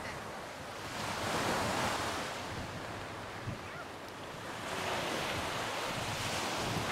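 Small sea waves breaking and washing up the beach, the surf swelling twice, about a second in and again past the middle, with wind rumbling on the microphone.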